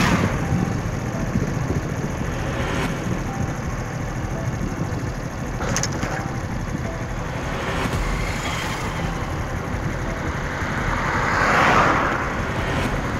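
Road traffic: a steady rumble of cars and motorcycles passing on a highway, swelling as one vehicle passes close about eleven to twelve seconds in.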